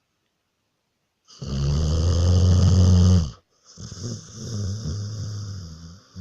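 Snoring: a long, deep snore of about two seconds starts about a second in, and after a brief pause a second, slightly quieter snore follows.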